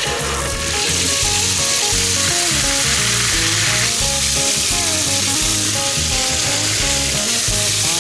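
Steady hiss of rushing water that starts suddenly right at the beginning, over background music with a steady beat.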